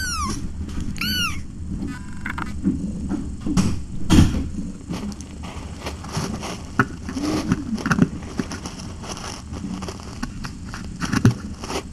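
Young kittens mewing twice near the start, short high cries that rise and fall. After that come scattered knocks, scratches and rustles from kittens scrambling close to the microphone, with a louder bump about four seconds in and another near the end.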